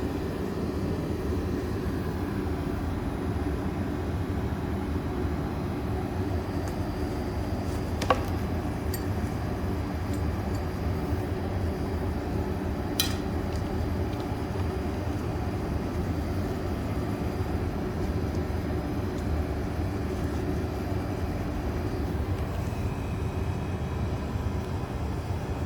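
A steady low hum or rumble, with two sharp clicks about eight seconds and thirteen seconds in.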